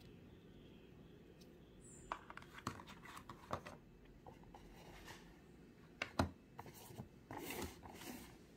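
Light handling noise of cardboard packaging on a wooden table: scattered small clicks and taps starting about two seconds in, with one louder knock about six seconds in and a brief rustle near the end.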